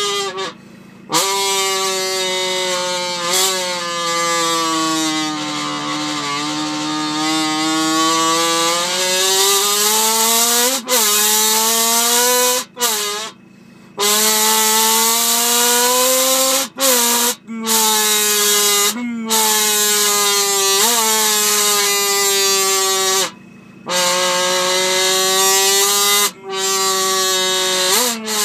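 A buzzy, horn-like pitched tone made as a sound effect. It is held for several seconds at a time and slides slowly down and back up in pitch, cut by short pauses about every two to five seconds.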